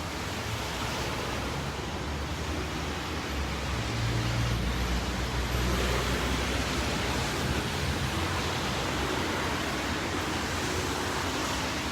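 Steady hiss of falling rain, with a low rumble swelling about four seconds in and fading a few seconds later.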